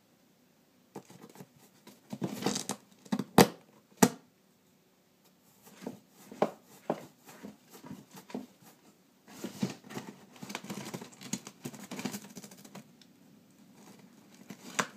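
A cat tearing and crinkling paper with its teeth through the handhole of a cardboard box, in irregular bursts with two sharp snaps a few seconds in.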